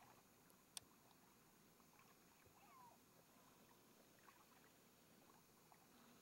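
Near silence: faint hiss with a few tiny clicks and one brief chirp.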